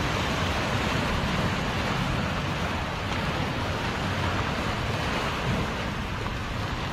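Sea waves surging and washing over a rocky shore ledge, a steady rush of surf, with wind on the microphone.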